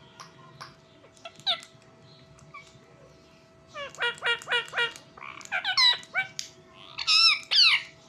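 Indian ringneck parakeet calls: about four seconds in, a quick run of four short chirps, then wavering squawking calls, the loudest two near the end.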